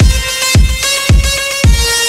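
Background electronic music with a steady kick drum beat, about two beats a second, under held synth notes.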